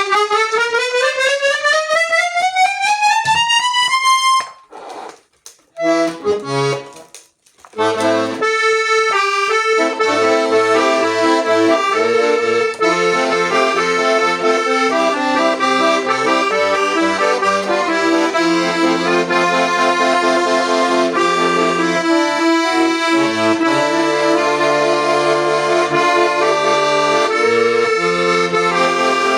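Cantulia Bambi accordion being played. It opens with a quick rising scale on the treble keys and breaks off about four seconds in. A few low bass notes are tried next. From about eight seconds in, a tune runs with sustained chords over a pulsing bass-and-chord accompaniment.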